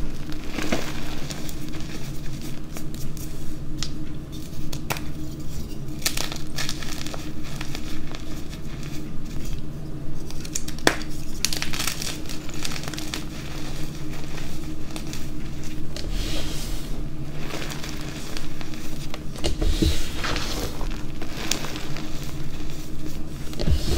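Hands squeezing and crumbling blue dyed gym chalk, crunching and crackling as the soft reformed chunks break apart into loose powder, with sharper snaps now and then as harder bits give way.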